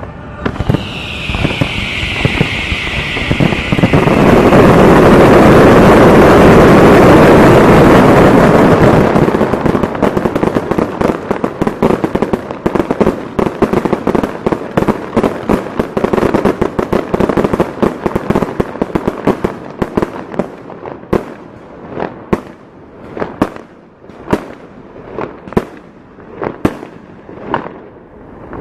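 Fireworks display finale: a dense, continuous barrage of bursts, loudest from about four to nine seconds in. It then breaks into crackling and individual bangs that thin out to about one or two reports a second near the end.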